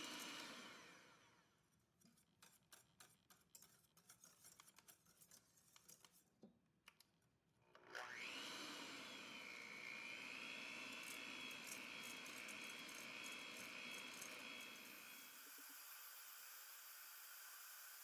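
Cuisinart stand mixer beating egg whites into meringue with its wire whisk: the motor winds down about a second in, leaving a few faint ticks, then spins back up with a rising whine about 8 s in and runs steadily with a high whine, whipping the whites after a sugar addition.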